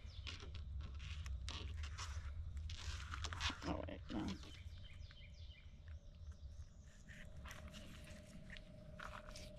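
Fillet knife crunching and scraping through a mangrove snapper on the cutting board: a run of small crisp cracks and rasps as the blade cuts through skin and bone.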